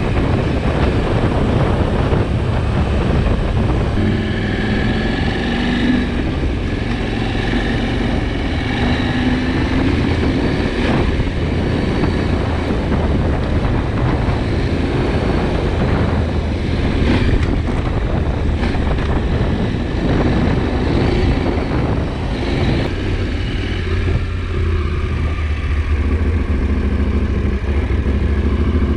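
KTM 790 Adventure's parallel-twin engine running as the motorcycle is ridden, its note rising and falling with the throttle, settling into a steadier low drone near the end.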